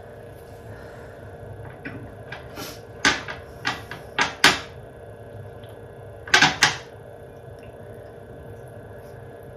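Sharp clicks and knocks from small objects being handled: a run of them from about two to four and a half seconds in, four of them loudest, then a quick cluster of three about six and a half seconds in.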